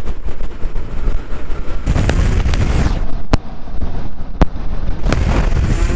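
Wind buffeting the microphone of a moving motorcycle at about 50 km/h, a loud, steady low rumble with the bike's running blended into it. Two sharp clicks stand out, about three and a half and four and a half seconds in.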